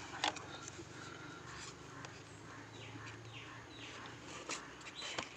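Faint background birdsong: a series of short chirps that slide downward in pitch, over a low hum in the middle, with a few light clicks.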